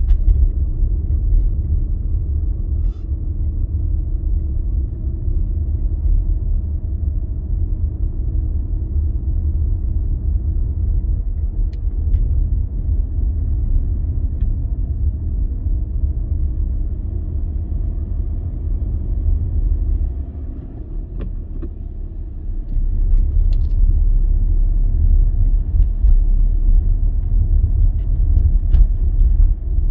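Vehicle driving on the road: a steady low rumble of engine and tyre noise. It drops for about two seconds around twenty seconds in, then picks up again, louder.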